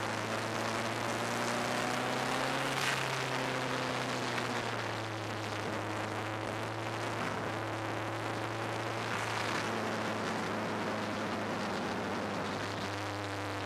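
Race car engine heard from inside an open cockpit on track, its note rising and falling as the revs change, over a steady rush of wind. There is a short sharp burst about 3 s in.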